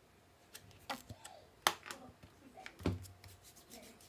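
Hands handling a small plastic bottle and rubbing its contents onto bare skin: a series of sharp clicks and crackles, the loudest a little under two seconds in, between soft rubbing sounds.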